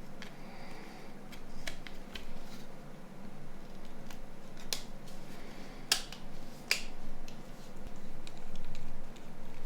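A few sharp clicks and light handling noises from small hand work on the phone's plastic parts, the loudest three clicks coming in the second half.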